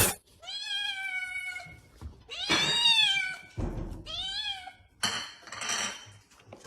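A sharp knock, then a cat meowing three times in long, falling calls, the middle one loudest, followed by a harsher, noisier call near the end.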